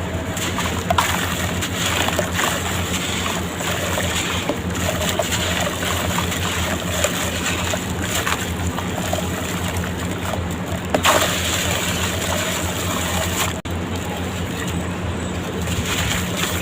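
Sand-cement blocks crumbling in water: a steady crackling fizz with sloshing, and sharper crunches about a second in and again about eleven seconds in, over a low steady hum.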